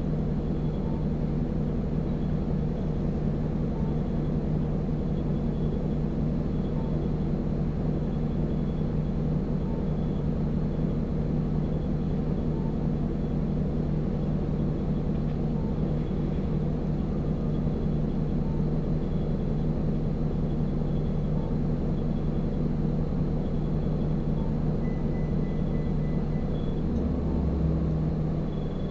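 Steady running drone of an Isuzu Erga non-step city bus (2TG-LV290Q3) and its 4HK1 four-cylinder turbodiesel, heard from on board. The drone holds steady throughout, with small faint ticks every second or two, and a deeper low rumble rises briefly near the end.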